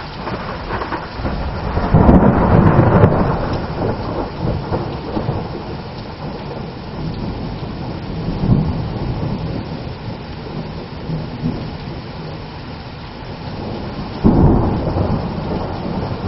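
Heavy thunderstorm rain pouring steadily, with thunder rumbling over it. A loud peal of thunder comes about two seconds in and lasts a couple of seconds, and another starts suddenly near the end.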